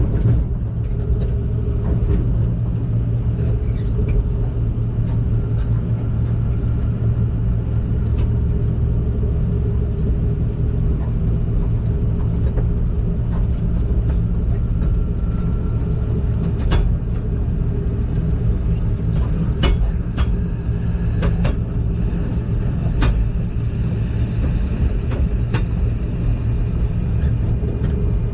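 Heavy machine's engine running steadily, its sound mostly low-pitched and even, with a few short clicks or rattles here and there.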